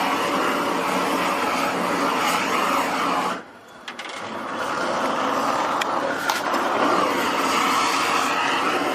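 Gas blowtorch flame running steadily while it heats a copper cauldron for hand tinning. It drops away sharply a little over three seconds in, then builds back to full strength, with a few sharp ticks later on.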